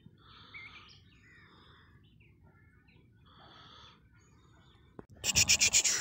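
Faint high chirps or squeaks in short patches about once a second, from a small animal or bird. About five seconds in, a loud, fast rattle of clicks takes over.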